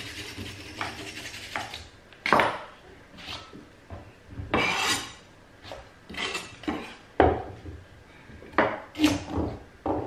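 Carrot being peeled with a scraping hiss for about the first two seconds, then a kitchen knife chopping the carrot on a wooden chopping board in a series of irregular knocks.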